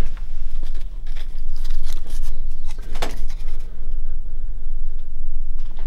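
A steady low hum with several even tones, with scattered clicks and scuffs over it, the clearest about three seconds in.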